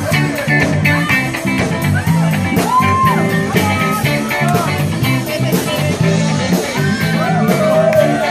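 Live cover band playing a rock song: a steady drum beat, a repeating bass line, guitar and a singer.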